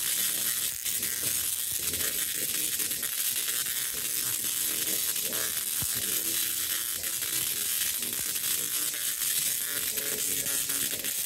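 Large Tesla coil firing continuously, its spark streamers from the top toroid buzzing steadily, the sound sitting mostly high in pitch.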